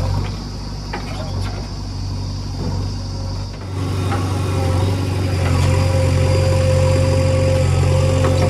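Heavy diesel engine running steadily, growing louder about four seconds in, with a steady higher whine joining shortly after.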